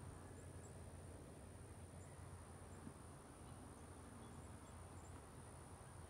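Near silence: faint outdoor background noise.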